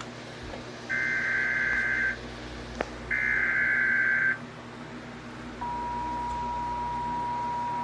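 Emergency Alert System SAME header: two short bursts of screeching digital data, then, about five and a half seconds in, the steady two-tone EAS attention signal begins and holds. Together they announce an incoming emergency alert, here a severe thunderstorm warning.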